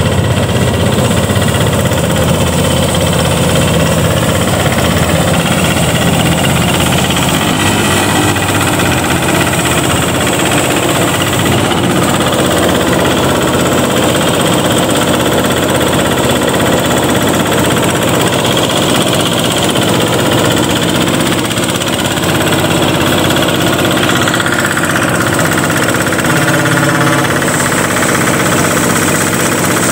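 Power thresher's single-cylinder diesel engine and threshing drum running steadily with a knocking beat while sheaves of rice are fed in to strip the grain from the straw.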